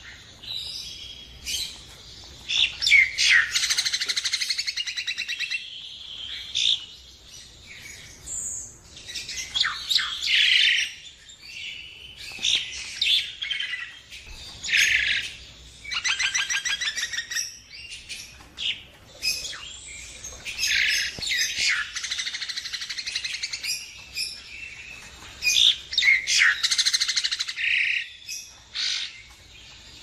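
Common myna calling: a varied string of harsh chattering, fast rattles and whistled notes, in phrases every second or two.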